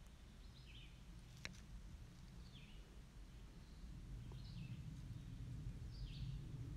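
Faint low rumble of a Boeing 777-300ER jet airliner passing high overhead, growing louder in the second half. Short bird chirps come several times, and there is one sharp click about a second and a half in.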